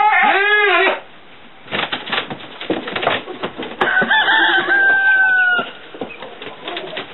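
Rooster crowing: a short two-part call right at the start, then a longer, drawn-out crow about four seconds in. Knocks and rustling fall between the two.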